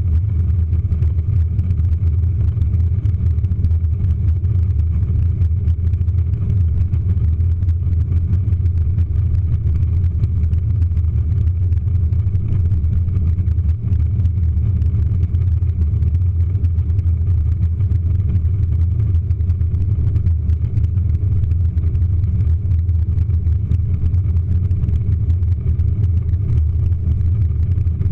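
Steady low rumble of a jet airliner's engines and tyres heard inside the cabin as it rolls along the runway on its takeoff run.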